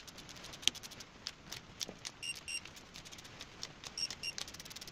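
Sped-up ratchet-type torque wrench clicking rapidly as engine main cap bolts are run down and torqued to the first 50 ft-lb stage. Twice, a pair of short high beeps cuts through the clicks.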